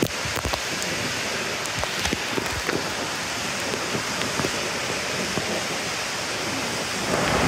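Steady rush and splashing of water falling into an indoor waterpark pool, with scattered drips and small splashes; the rush grows louder near the end.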